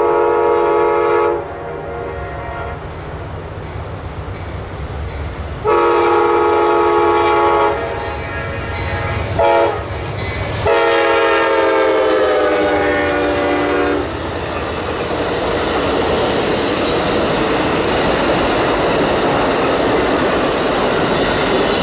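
An Amtrak diesel locomotive's multi-tone horn sounds four blasts, long, long, short, long, the grade-crossing signal, over the low rumble of its engine. The last blast drops slightly in pitch as the train passes. From about two-thirds of the way in, the passenger cars rumble and clatter past on the rails.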